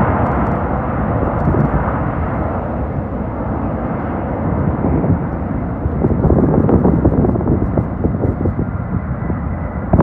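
Jet engines of a McDonnell Douglas trijet freighter rolling down the runway, a steady rumble that swells slightly about six seconds in.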